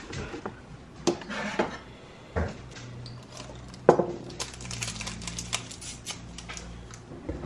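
Small handling sounds on a kitchen counter: clicks and knocks of things picked up and set down, with one sharp knock about four seconds in, then the crinkling and tearing of a paper sweetener packet. A low steady hum runs underneath through the middle of it.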